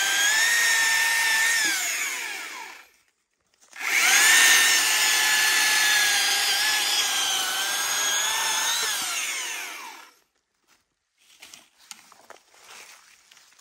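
Stihl MSA 300 battery chainsaw's electric motor and chain whining as it saws dry wood at its top power setting. The whine winds down about two seconds in, starts again a second later for a cut of about five seconds, then winds down again. Faint crackles and knocks follow near the end.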